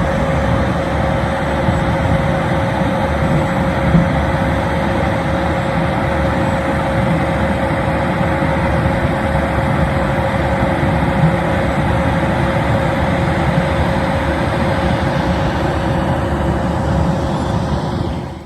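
Self-propelled sugar beet harvester running steadily at work, a dense machine noise with a constant whine through it, fading out near the end.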